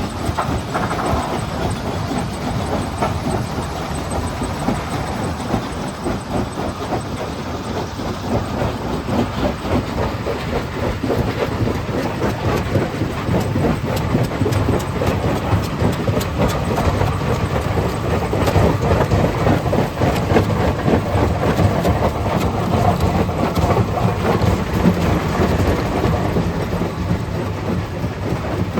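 Stone crusher plant running: rock clattering and grinding through a jaw crusher over a steady machine rumble, a dense, continuous rattle that grows a little louder past the middle.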